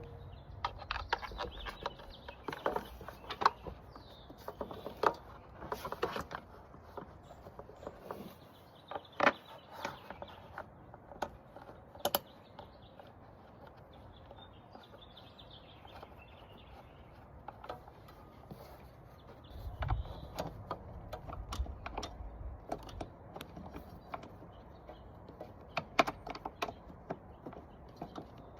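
Scattered clicks, taps and knocks of parts being handled and fitted while a dust-collection attachment is set up on a benchtop planer, with a brief low rumble about two-thirds of the way through. The planer is not running.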